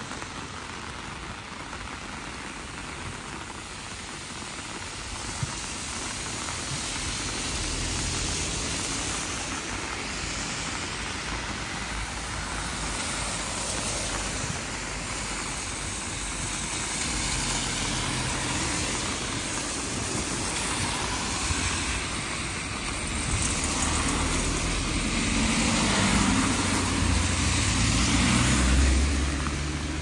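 Heavy rain pouring steadily on a wet street. A low rumble swells and fades a few times, loudest near the end.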